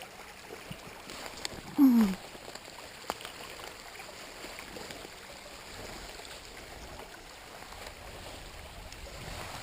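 Small stream's water running with a steady rushing noise. About two seconds in, a short voice sound falls in pitch, and a few faint knocks come through.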